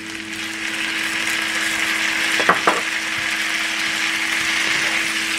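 Halved baby potatoes sizzling in a hot frying pan just after a spoonful of rice vinegar goes in, the sizzle swelling over the first couple of seconds and then holding steady. A spatula stirs them, with two quick taps on the pan about two and a half seconds in, over a faint steady hum.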